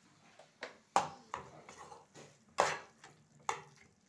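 A slotted spatula scrapes and knocks against a kadai while crumbled paneer is stirred and sautéed. There are about five sharp strokes, irregularly spaced, the loudest about a second in and again at about two and a half seconds.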